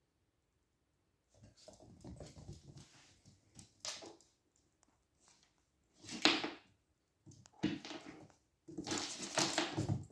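Small puppy making its own noises in several short bursts as it plays, the loudest ones in the second half.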